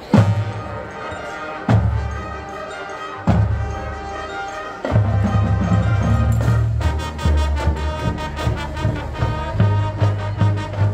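Marching band of brass, woodwinds and percussion playing. It comes in with a loud full-band hit, strikes two more accented hits about a second and a half apart, then plays on steadily and settles into a regular pulsing beat near the end.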